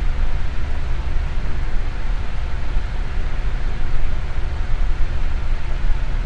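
Electric fan running steadily: an even rushing noise with a strong low rumble underneath and a faint hum.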